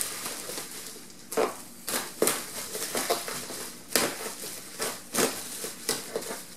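Plastic bag and bubble wrap crinkling and rustling as they are pulled open by hand, in irregular crackles.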